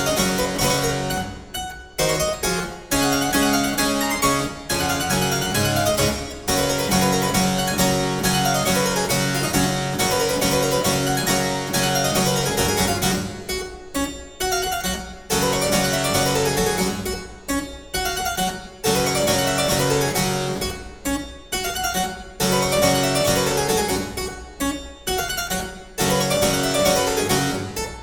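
Background music played on a harpsichord-like keyboard, with quick running arpeggios.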